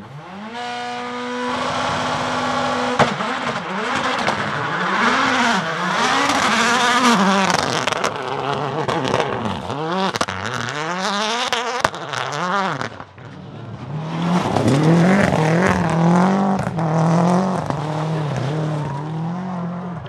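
Rally car engines at high revs across several cuts: an Audi S1 EKS rallycross car's turbocharged four-cylinder held at one steady pitch, then revving hard up and down through fast gear changes as it slides on gravel. In the last few seconds another rally car's engine warbles at high revs.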